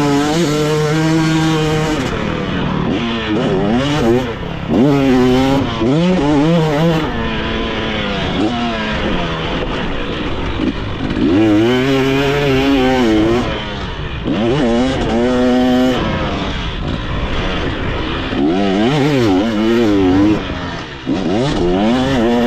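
Motocross dirt bike engine revving up and dropping off again and again as the rider opens and closes the throttle around the track.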